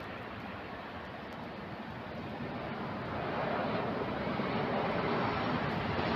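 Jet airliner engine noise, a steady roar that grows louder from about halfway through as the aircraft comes closer.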